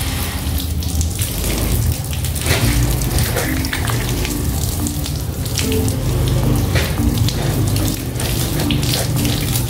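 Water from a garden hose running and splashing over a cat and its wire cage, a steady hiss with scattered drips and patters. Background music with short repeated notes plays underneath.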